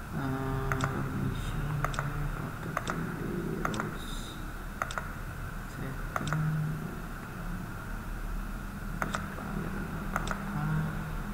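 Computer mouse clicking: about seven sharp single clicks roughly a second apart, with a pause of a few seconds in the middle.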